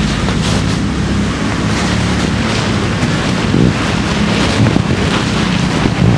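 Wind buffeting the microphone, over a steady low engine hum from street traffic.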